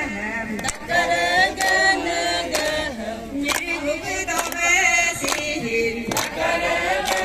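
Group of voices singing a chant-like traditional Galo song together, women's and men's voices, with a sharp beat about once a second.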